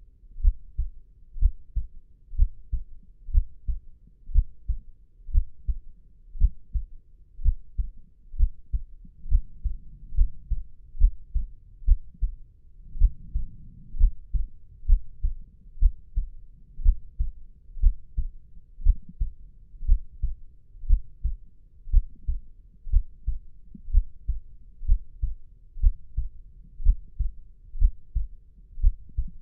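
Slow, steady heartbeat, a muffled low double thump (lub-dub) repeating about once a second.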